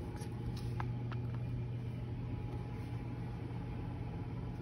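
A steady low mechanical hum, with a few faint light clicks in the first second or so.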